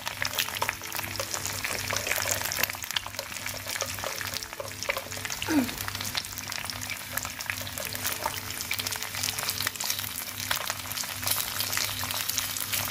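An egg frying in hot oil in a pan: steady sizzling and crackling with many small spitting pops.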